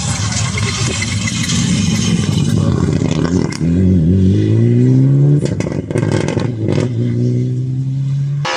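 Rally car engine pulling hard, its pitch climbing steeply about halfway through, then a few sharp cracks as the throttle closes, and a steady engine note near the end.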